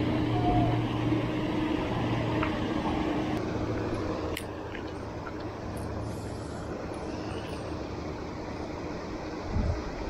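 A steady mechanical hum with a low drone, louder for the first few seconds and then settling lower, with a short low thump near the end.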